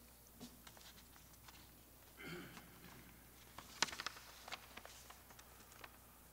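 Faint scattered clicks and rustling, with one sharper click about four seconds in.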